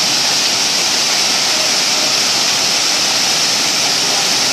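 Waterfall's water pouring and crashing: a loud, steady, even hiss, strongest in the high range.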